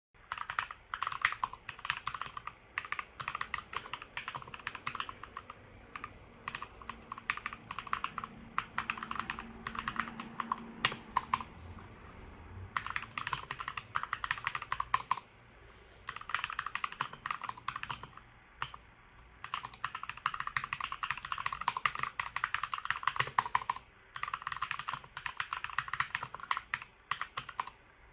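Typing on a Keychron K2 mechanical keyboard fitted with new Keychron keycaps: fast runs of key clacks with short pauses between them.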